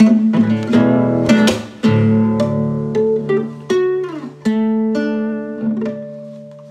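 Guitar playing the closing bars of a song: quick strummed chords, then single struck chords with one note bending down in pitch about four seconds in, and a last chord left ringing and fading out.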